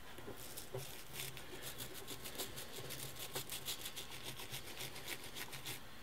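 Faint soapy toothbrush scrubbing the gear of a typewriter's carrier tray: quick back-and-forth strokes, several a second, working old caked grease off the gear teeth.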